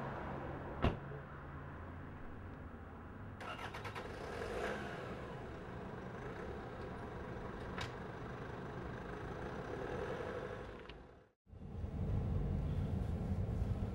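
Car engine running on a street, with a sharp click about a second in. Near the end the sound cuts out briefly, then gives way to a louder, steady low rumble of a car heard from inside its cabin.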